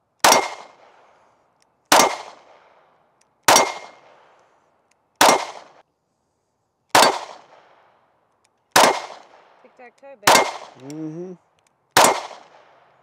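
Taurus GX4 9mm subcompact pistol fired slowly and deliberately: eight single shots, about one every second and a half to two seconds, each a sharp report with a short fading tail.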